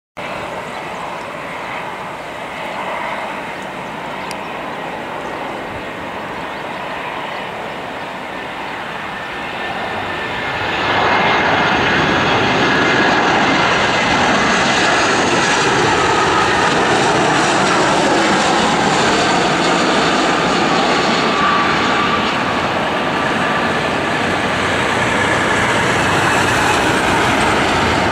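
Twin-engine jet airliner engines of the Airbus A320 family: a steady rumble with a whining tone. It gets clearly louder about ten seconds in and stays loud.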